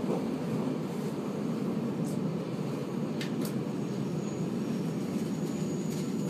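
Steady rumble of a Transilien suburban train's wheels on the rails, heard from inside the coach as it rolls slowly along a station platform. There are a few faint clicks, and a faint thin high whine starts about two-thirds of the way in.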